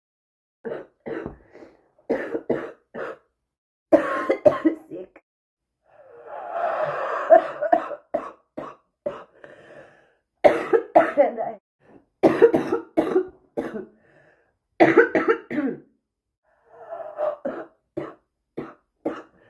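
A person's bad smoker's cough: repeated coughing fits, each a quick run of several coughs, with a longer drawn-out stretch about six seconds in.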